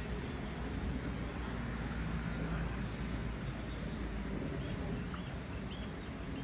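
Outdoor ambience: a steady low rumble with scattered short, high bird chirps and whistles.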